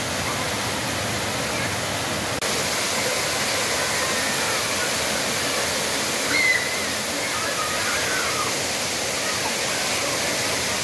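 Water pouring from a wall fountain's cascade into a shallow pool, a steady rushing splash, with faint children's voices calling out in the middle. The sound breaks off for an instant about two and a half seconds in.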